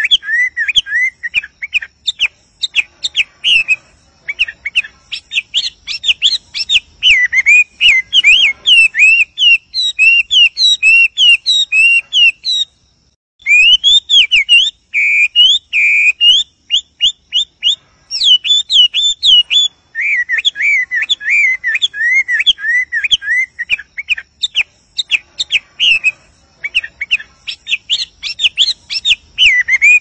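Chinese hwamei singing: a long, nearly unbroken run of quick, varied whistled phrases, with one short pause a little before the middle.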